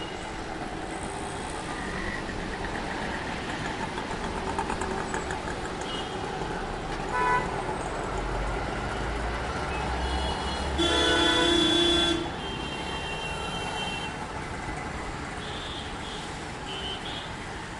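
Steady traffic noise with a vehicle horn sounding once for about a second and a half near the middle, the loudest sound; a brief shorter toot comes a few seconds earlier.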